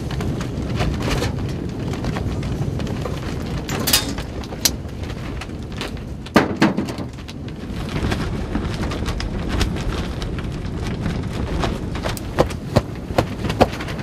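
Blizzard wind rushing and buffeting against the hide walls of a tundra tent, a steady low noise. Sharp knocks break through it now and then, the loudest about six seconds in and a quick run of taps near the end.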